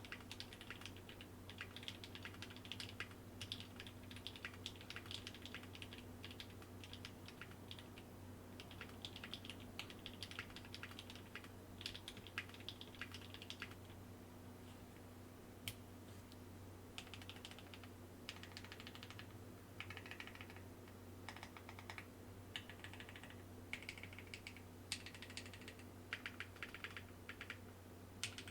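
Typing on a Tofu60 mechanical keyboard with NovelKeys Cream linear switches lubed with 205g0, under GMK keycaps on a brass plate in a Sorbothane-filled case. Runs of quick keystrokes come in bursts, with a short lull about halfway through.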